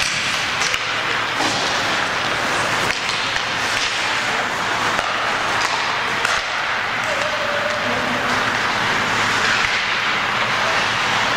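Steady ice-rink noise during a hockey game: an even hiss of skates on the ice and the arena, with a few faint clacks of sticks or puck.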